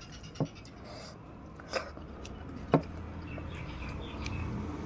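Mouth sounds of a person eating rice and fish: chewing with three short, sharp wet clicks of the lips and tongue, with a low hum rising in the background in the second half.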